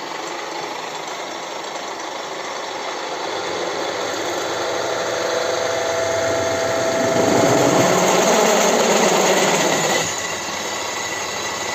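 Vertical drill press running with a steady mechanical whir; it grows louder about halfway through, then drops back suddenly near the end.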